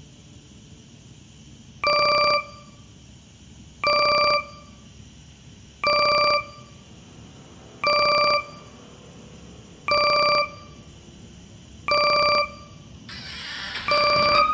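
A phone ringing: a short pitched ring tone sounding seven times, evenly once every two seconds.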